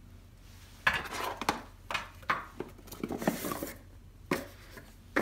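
Cardboard packaging being handled: clatters and rustles start sharply about a second in, then a sliding scrape as the cardboard insert is lifted out of the box, and a single knock near the end.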